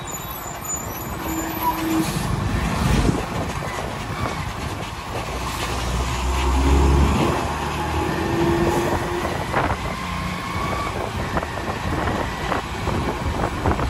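Engine and road noise of vehicles on the move, travelling close behind a bus; a deeper rumble swells about six to seven seconds in.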